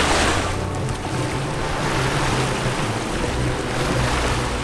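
Sailing yacht's engine running hard under motor, a steady low hum, under the rush of wind and choppy water past the hull. A louder hiss of wind and water at the start eases about half a second in.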